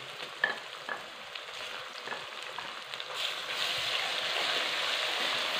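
Sliced onions and freshly added ginger-garlic paste frying in hot ghee in a metal karahi, sizzling while a wooden spoon stirs and scrapes them, with a few light knocks near the start. The sizzle grows louder about three seconds in as the paste is worked into the oil.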